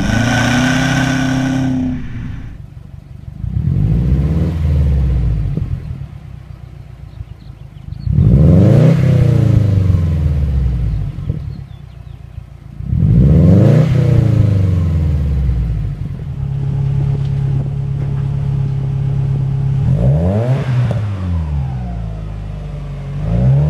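Subaru Forester flat-four engines through aftermarket exhausts. At first a moving Forester XT's turbo-back exhaust pulls under load. Then a parked Forester XT with a ScoobySport exhaust is revved three times, each rev rising and falling back to idle, and finally a Forester with a 3-inch FOX exhaust idles steadily, with a quick blip and the start of another rev near the end.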